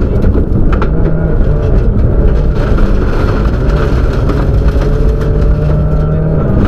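Subaru rally car's turbocharged flat-four engine running hard under load, heard from inside the cabin, its pitch holding and then shifting with throttle and gear changes over a steady roar of tyres on gravel, with a few sharp ticks.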